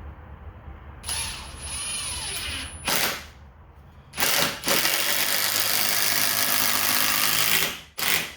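Hammer drill driving a three-inch deck screw through a treated 2x6 leg into the stand's stringer: a run of about two seconds, two short bursts, then one long loud run of about three seconds with a brief final burst near the end.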